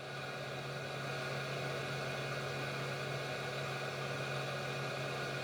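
Hot air rework wand of a YIHUA 8786D soldering station blowing a steady airy whir. The wand is docked and its fan is running on in the cool-down cycle that comes before the automatic cut-out.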